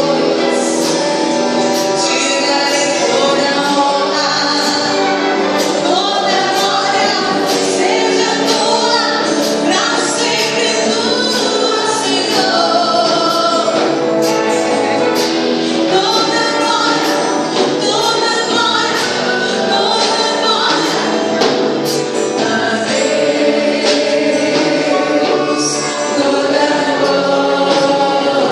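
Christian worship song: a choir singing over band accompaniment, with regular percussion hits.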